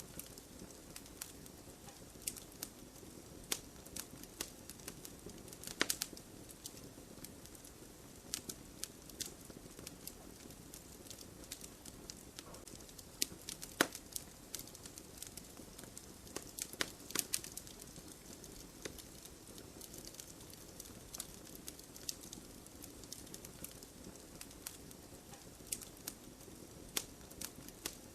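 Wood fire burning in a fireplace: a soft steady rush of flame with irregular sharp crackles and pops from the burning logs, a few louder pops among them.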